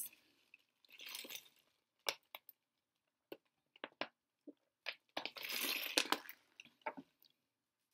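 Thin disposable plastic water bottle crackling and clicking in the hand as it is lifted, drunk from and lowered. Scattered sharp clicks, with two longer noisy crinkles about a second in and again around five to six seconds.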